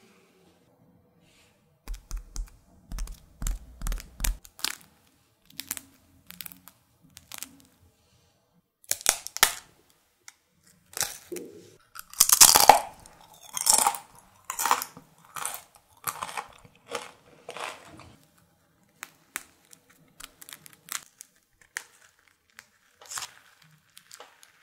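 The crisp, caramelised top crust of a thousand-layer butter toast crackling and snapping in short clusters as fingers press and break it, sounding like the glassy sugar shell of tanghulu, with the loudest crackling about halfway through. Near the end, thin layers of the soft crumb tear as they are peeled apart.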